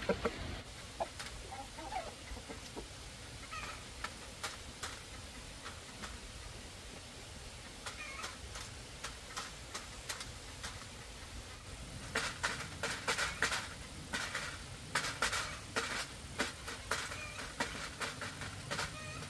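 Chickens clucking softly, amid many sharp clicks and taps that come in quick clusters, loudest in the second half.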